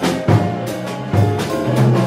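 Jazz piano trio playing live: grand piano, electric bass and a drum kit struck with sticks, with frequent drum and cymbal hits over a moving bass line.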